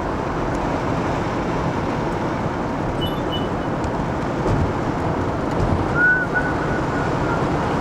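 Steady road and wind noise inside a moving car with the sunroof open, with a brief faint whistle-like tone about six seconds in.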